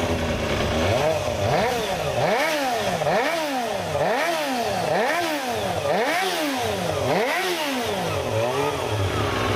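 Kawasaki Ninja ZX-25R's 250 cc inline-four engine revved over and over in quick throttle blips, the pitch rising and falling about once a second.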